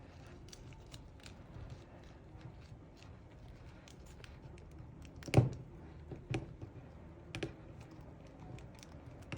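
Small plastic doll and its tiny accessory being handled: light scattered clicks and taps over faint rustling, with one louder knock about five seconds in.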